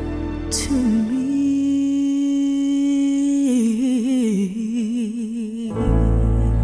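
Soul ballad playing: a woman's voice holds one long wordless note over soft backing, wavering toward its end, then the bass and keyboard come back in near the end.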